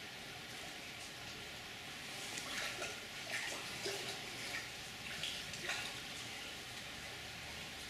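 Stream water running steadily, with a series of short splashes about halfway through as a large trout moves and thrashes in the shallow water.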